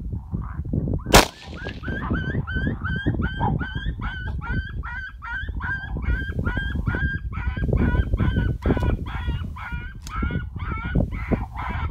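Electronic predator call playing a fast run of short, high, hooked yelping calls, about three a second, over a steady low rumble. A sharp crack about a second in is the loudest sound, with a fainter one near ten seconds.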